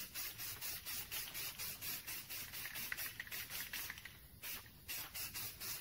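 Aerosol can of Rust-Oleum spray-on gel coat hissing as light coats are sprayed on, with short breaks about four seconds in.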